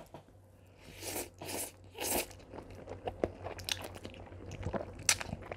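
A person eating spicy stir-fried ramen noodles close to a clip-on mic. Three short noisy mouthfuls come between about one and two seconds in, then softer chewing with small scattered clicks.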